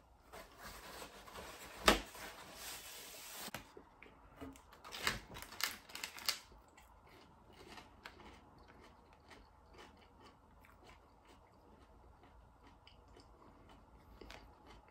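A cardboard McDonald's apple pie sleeve being torn open and rustled for about three seconds, with one sharp snap about two seconds in. Then a few crisp crunches from bites into the fried pie crust, and faint chewing.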